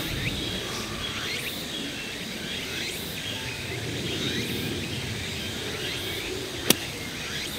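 Steady open-air background with birds chirping. Near the end comes one sharp crack: an approach wedge striking the ball out of bunker sand in a greenside bunker shot.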